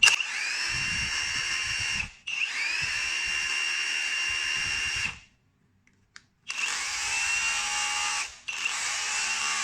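Cordless Dongcheng rotary hammer run in four short trigger bursts, each spinning up with a rising whine that settles into a steady high motor tone, with a pause of about a second midway. It runs clean, with no scraping of the rotor against the stator.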